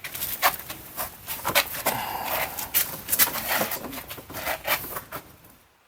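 Hands handling the door's window glass and parts: a rapid, irregular run of clicks, knocks and rubbing that fades out near the end.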